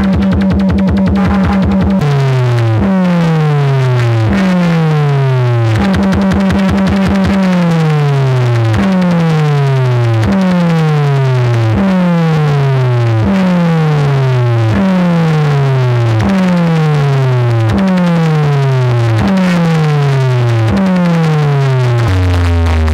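Bass test music played loud through a stacked wall of DJ speaker boxes: a synthesizer bass note that slides down in pitch over and over, a little under a second each time, with two stretches of a fast-pulsing steady tone.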